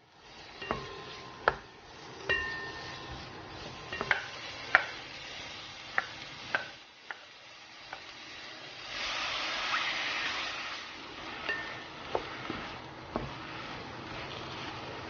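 A wooden spatula stirring vegetables in a pot, with sharp clacks where it knocks against the pan. About nine seconds in, a louder sizzle lasting a couple of seconds as squid goes into the hot oil, followed by a few more knocks of the spatula.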